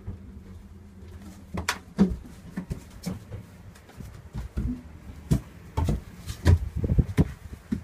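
Irregular thumps and knocks of footsteps and handling as someone walks through a boat's cabin, over a low steady hum that fades out about two seconds in.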